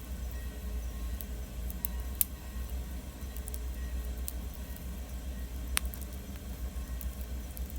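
Wood fire burning, with a few sharp crackles and pops over a steady low rumble; the loudest pops come about two seconds in and near six seconds.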